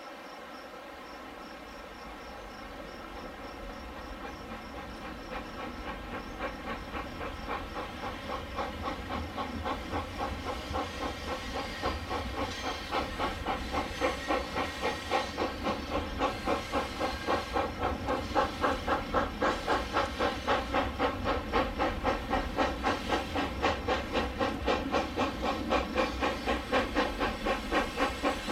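Steam locomotive chuffing from a sound-equipped HO-scale Union Pacific steam locomotive: an even beat of hissing exhaust chuffs that fades in and grows steadily louder as the train approaches.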